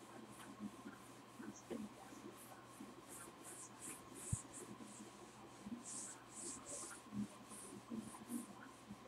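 Faint swishing strokes of an eraser wiping a whiteboard, about two a second, with a single light knock about four seconds in.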